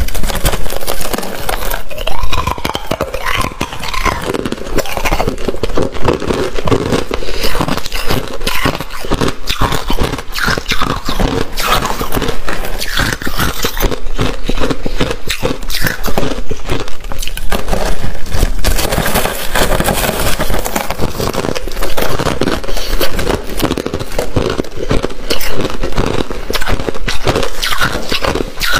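Crushed white ice being bitten and chewed, a dense, steady run of crackling crunches.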